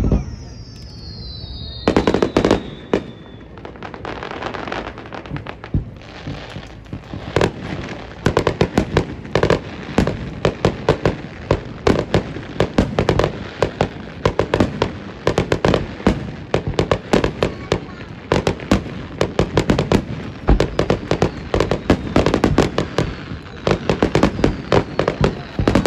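Fireworks display of aerial shells: a high whistle glides down over the first few seconds, then a dense, continuous run of sharp bangs and crackles as the shells burst.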